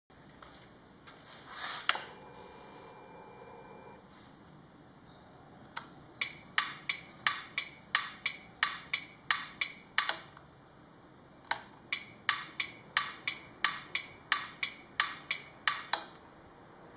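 An audible pilot (a turn-signal clicker) on a Honda CT125 Hunter Cub ticking in time with the flashing indicator, about three sharp clicks a second, in two runs of several seconds with a short break between. A single knock comes about two seconds in.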